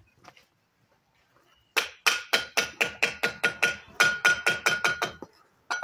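A fast, even run of about twenty sharp taps, some six a second, each with a metallic ring, starting about two seconds in and stopping a little after five seconds, then one more tap near the end: a mason's trowel tapping hollow ceramic bricks to bed them in mortar.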